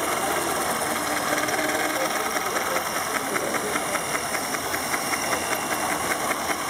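Hand-held cordless drill and an electric motor driving a compound planetary gear train of spur gears and chain sprockets, running steadily with a whirring rattle of meshing gears. From about two and a half seconds in there is also a fast, even ticking.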